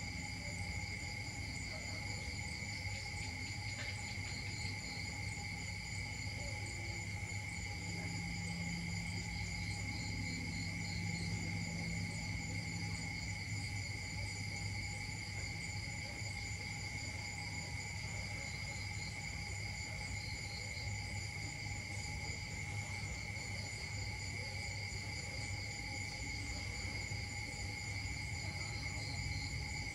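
Steady insect chorus: a continuous high-pitched drone at several pitches that never breaks, over a low rumble.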